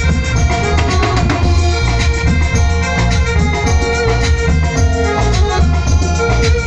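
Live band music played loud through stage loudspeakers: a keyboard melody with an organ- or accordion-like voice over a drum kit and a heavy, steady bass beat.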